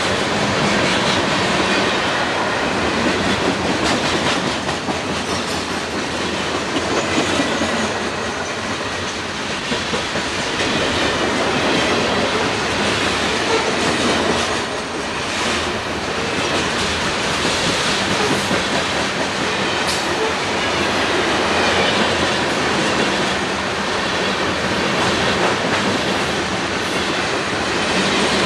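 Conrail train of ballast hopper cars rolling past: a steady rumble of steel wheels on rail, with a continuous clickety-clack of wheels over the rail joints.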